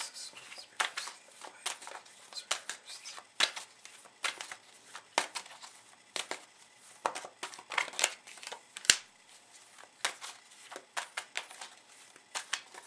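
A deck of tarot cards being shuffled and handled, giving an irregular run of short, sharp card snaps and flicks, the sharpest about nine seconds in.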